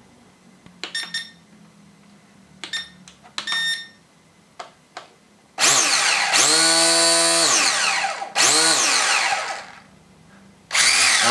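Syma X8C quadcopter's electric motors and propellers, with the drone held in hand, whirring up in short bursts as the throttle is worked. A few faint short buzzes come first, then two loud bursts of about two seconds each, the pitch gliding and holding before it drops away, and a third starting just before the end.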